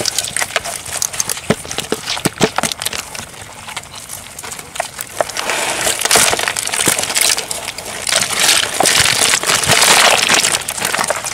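Catch being tipped out of a lú net fish trap: scattered clicks and knocks at first, then from about five seconds in a dense splashing rush as the water, fish and crabs spill out.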